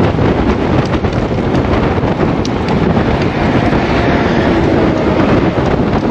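Steady wind rushing over the microphone of a camera on a road bike riding at speed, with a low rumble from the bike on the road.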